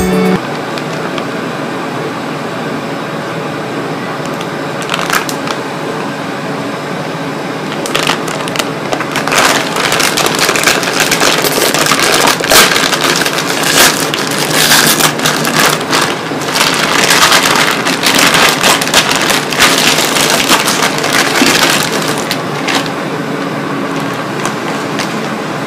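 Plastic instant-noodle packet crinkling and crackling as hands work it open and pull out the dry noodle block. The crackling starts about a third of the way in and runs until near the end, over a steady background hiss.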